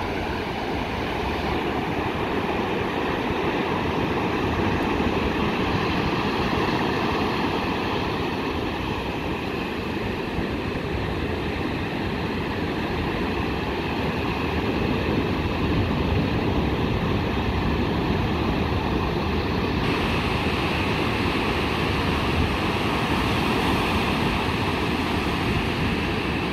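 Ocean surf breaking and washing through the shallows: a steady rush of waves that swells and eases slowly.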